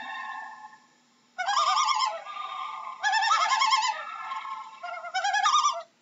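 Common loon calling: a quavering tremolo repeated three times, starting about a second and a half in, with steadier held notes between the bursts.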